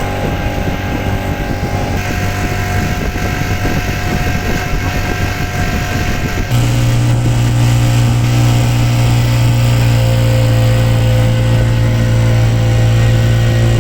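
Motorboat engine running steadily. About six and a half seconds in, it steps up suddenly to a louder, deeper, steady note, as when the throttle is opened.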